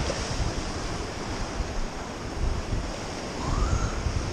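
Sea surf breaking and washing against the boulders of a rock jetty, with wind buffeting the microphone in uneven gusts.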